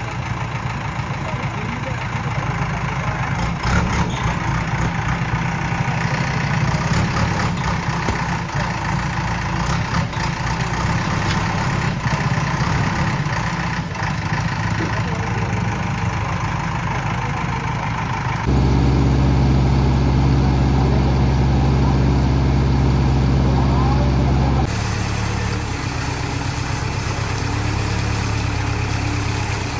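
Diesel engine of a Schwing Stetter SLM600 self-loading concrete mixer running steadily. About two-thirds of the way through it suddenly turns louder and deeper for about six seconds, then drops back to the earlier level.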